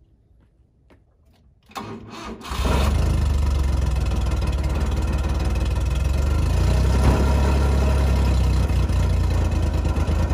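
A kei mini truck's small engine cranks and catches about two seconds in, then idles steadily.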